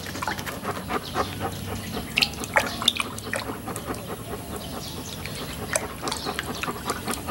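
Hand squeezing and swishing in a plastic bucket of water, working shrimp paste into solution: irregular small splashes and drips.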